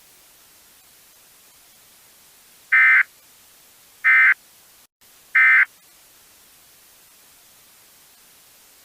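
Three short Emergency Alert System digital data bursts (SAME screeching tones): the End of Message code that closes an EAS test. They come evenly, about a second and a half apart, over a faint steady hiss.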